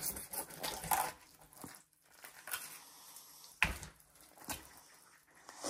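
Knife cutting a fillet off a crappie on a plastic cutting board: faint, scattered slicing and scraping of the blade through the fish, with a couple of sharp clicks past the middle.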